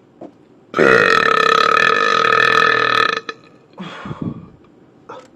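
A man's loud, long burp, held at a steady pitch for about two and a half seconds, followed about a second later by a short, much fainter sound.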